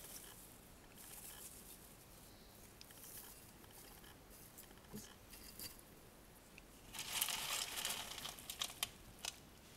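Sphagnum moss rustling and crackling as gloved hands pull it apart, loudest in a dense spell about seven seconds in.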